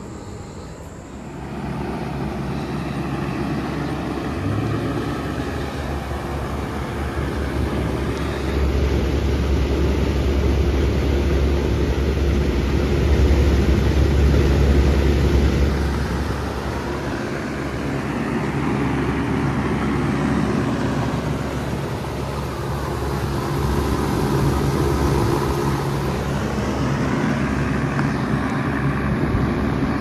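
Outdoor air conditioner and heat pump units running: a steady hum of fans and compressors, with a deeper low rumble from about 8 to 16 seconds in.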